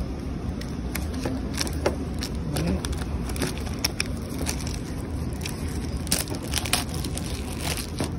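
Clear plastic shrink wrap crinkling and crackling in irregular bursts as it is picked at and peeled off by hand from a metal tin's lid, over a steady low hum of street traffic.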